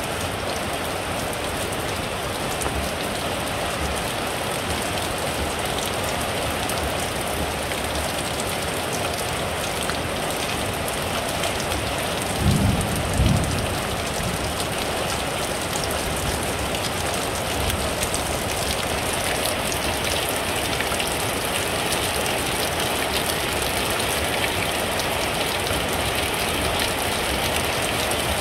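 Heavy rain splashing steadily into shallow standing water on paving, with streams running off a plastic dustpan. About halfway through there are two brief low thumps, close together.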